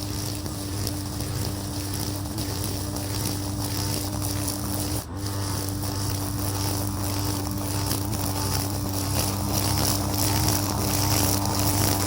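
Brush cutter engine running steadily at working speed while cutting grass, with a rhythmic pulsing about twice a second. The sound dips briefly about five seconds in.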